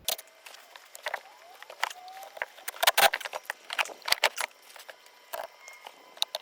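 Irregular clicks and clinks of hand tools and metal parts being handled while taking apart an engine, with a dense cluster about three seconds in and a few faint brief squeaks.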